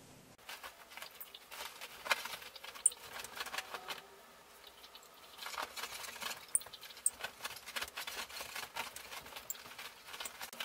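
A labradoodle pawing and digging at a comforter on a bed: faint, irregular scratching and fabric rustling in bouts, with a short lull about halfway through.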